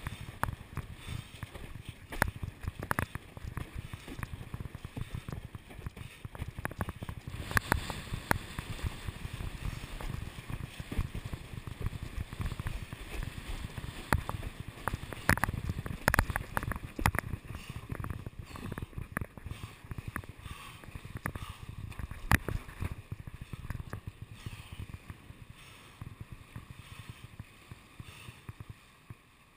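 A windsurf board running over choppy water: water rushing along the hull with many sharp slaps as it hits the chop, under a low rumble of wind on the microphone.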